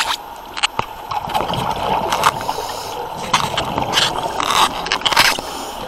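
Underwater wet welding heard from the water: irregular sharp crackles and short bursts of bubbling as a diver welds a sacrificial anode.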